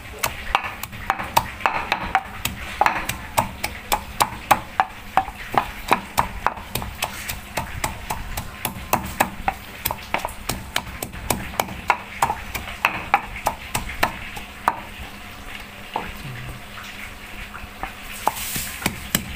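Pestle pounding garlic and red chilies in a mortar: repeated knocks, about two to three a second, as the garlic and chilies are crushed.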